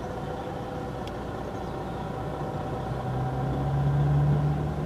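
Vehicle engines running steadily; about three seconds in, a low engine hum swells louder and holds.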